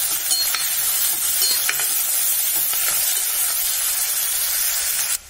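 Sliced onions with green chillies and curry leaves sizzling as they sauté in hot ghee and oil in a pressure cooker, stirred with a spoon that scrapes and clicks against the pan now and then. The sizzle cuts off abruptly near the end.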